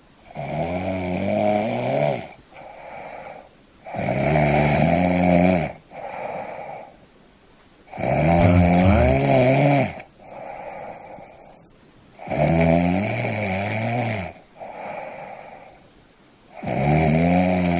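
A person snoring: five loud snores of about two seconds each, coming roughly every four seconds, each followed by a shorter, softer sound and a quiet pause.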